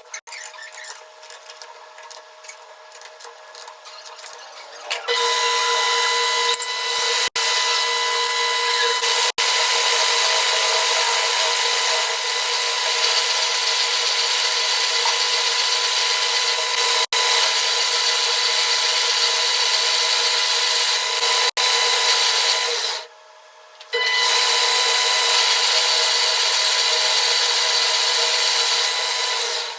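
Metal lathe cutting a shaft: a loud, steady scraping noise with a steady whine. It starts about five seconds in after a few seconds of quieter clicking, and pauses for about a second near the end before carrying on.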